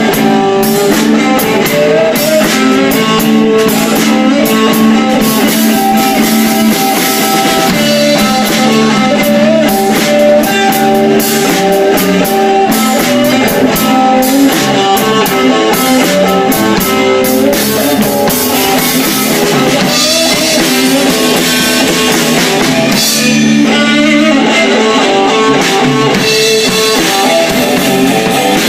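Live blues band playing: guitar lines over bass and a drum kit.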